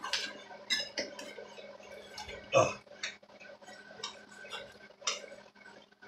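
Scattered metallic clicks and knocks of a wrench and hands working the reverse-threaded arbor nut of a bench grinder to get the wheel off, with one louder knock about two and a half seconds in.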